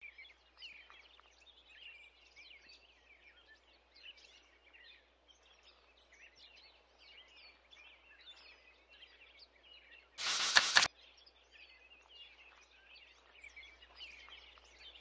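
Faint birds chirping and twittering, many short calls one after another. About ten seconds in, a short loud burst of sound cuts in for under a second.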